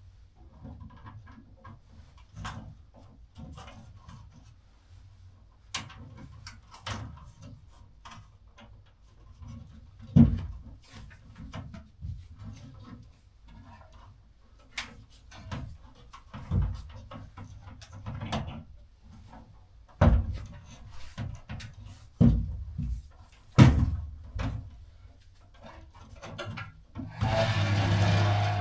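Scattered knocks, clicks and handling thumps of hand work on a ceiling light fixture and its fittings, with several sharper knocks and a loud rushing noise lasting about a second and a half near the end.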